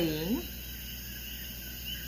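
A woman's voice finishing a short spoken question, then a steady background hiss with a low hum underneath.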